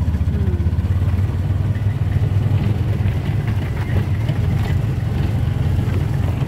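A motor vehicle's engine running steadily with a low drone, heard from inside the moving vehicle.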